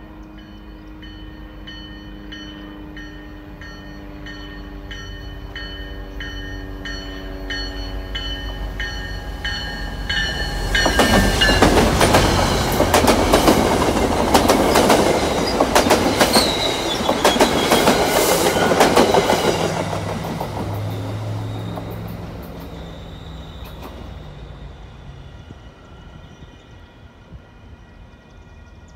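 Diesel-hauled MBTA commuter rail train with bilevel coaches approaching, then passing close by, loud for about ten seconds with wheels clattering over the rail joints and a brief wheel squeal on the curve, before fading away. While it approaches, a faint bell-like ringing strikes about twice a second.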